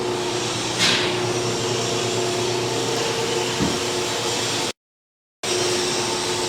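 Steady machine-shop noise from running machinery, an even hiss-like rush with a constant hum, and a short sharp hiss about a second in. The sound cuts out completely for under a second near the end.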